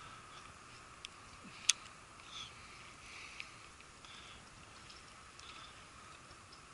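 Faint steady outdoor background hiss with a few isolated sharp clicks, the loudest just under two seconds in.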